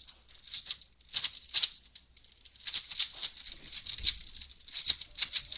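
A new speedcube being turned quickly by hand, its plastic layers clicking and rattling in quick runs of turns with short pauses between them.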